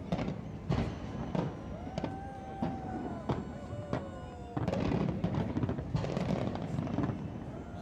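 Fireworks display going off in a dense run of bangs and crackles, with music playing under it. About two seconds in, the bangs thin out and long held notes come through, and near five seconds the bursts thicken again.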